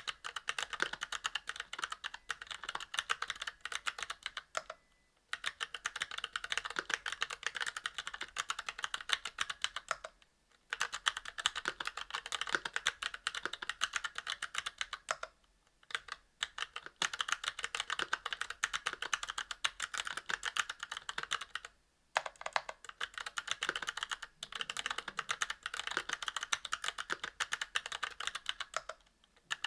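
Continuous fast typing on a mechanical keyboard with Kailh Box Crystal Royal tactile switches in a brass plate under GMK keycaps, a dense patter of keystrokes broken by brief pauses about every five or six seconds.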